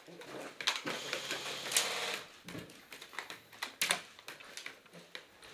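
Airsoft guns firing: scattered sharp single shots, with a rapid full-auto burst about two seconds in.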